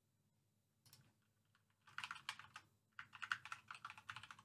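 Typing on a computer keyboard: a lone click about a second in, then quick runs of keystrokes from about two seconds in.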